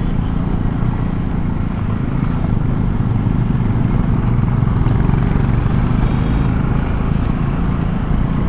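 KTM Duke 390 motorcycle's single-cylinder engine running steadily at low speed while riding over a rough, soil-covered stretch of mountain road, with a constant low rumble of engine and road noise.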